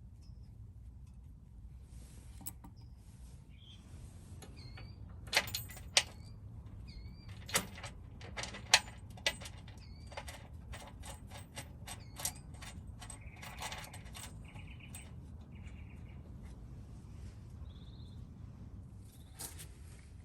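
Scattered light clicks and clinks of bolts and hand tools being handled, with a few sharper knocks between about five and nine seconds in. Small birds chirp faintly now and then.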